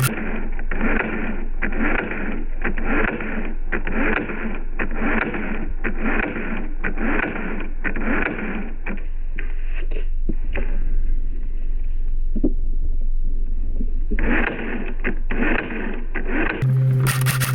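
A slowed-down, low-pitched mechanical clatter in repeated bursts about a second apart, dropping away for a few seconds after the middle and returning near the end.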